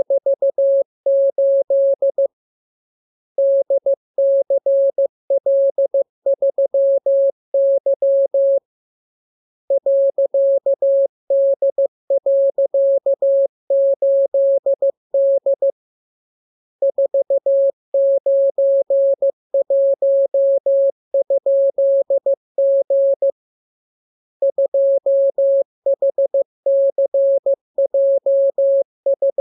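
Morse code practice signal: a single steady mid-pitched tone keyed on and off in dots and dashes, sent as runs of characters with pauses of about a second between them.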